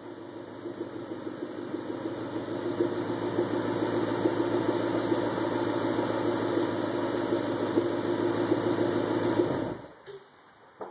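2011 Ford Mustang GT's 5.0-litre V8 running through newly fitted Ford Racing SVT exhaust pipes. It grows louder over the first few seconds, holds steady, then is shut off near the end, followed by a single short knock.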